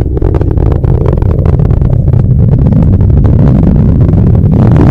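Falcon 9 first stage's rocket engine firing its landing burn: a loud, steady low rumble with crackling throughout.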